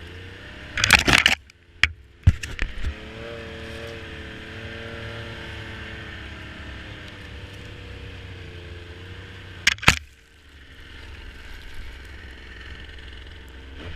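Snowmobile engine running steadily at a low, even pitch. It is broken by several short, loud bursts of noise about a second in and another near ten seconds in, and the engine dips briefly just after the last burst.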